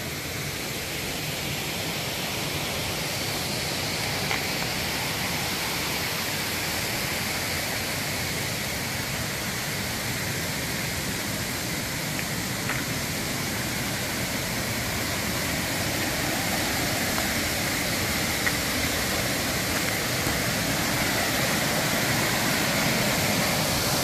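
Waterfall cascades pouring over rock ledges into pools, a steady rushing of water that grows slightly louder near the end.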